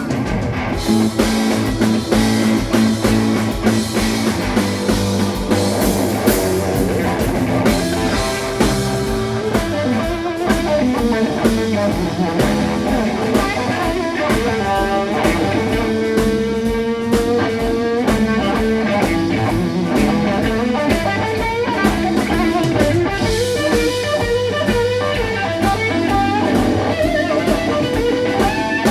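Live blues-rock band playing an instrumental break: electric guitar soloing over bass and drum kit, with no vocals.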